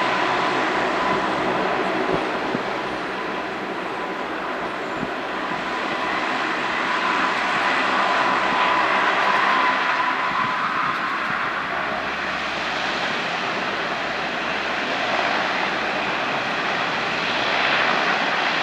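The four Allison T56 turboprop engines of a US Navy P-3 Orion run as the aircraft rolls along the runway, a propeller drone under a steady turbine whine. The whine fades about halfway through.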